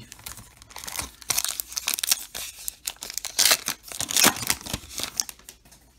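The wrapper of a baseball card pack being torn open and crinkled by hand: quick, irregular crackling rustles starting about a second in, loudest a little past the middle.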